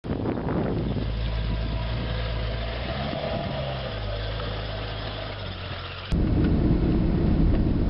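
Audi 100 (C4) saloon's engine running steadily as the car moves off and drives past. About six seconds in the sound cuts to louder, noisier driving sound heard from inside the car's cabin on the road.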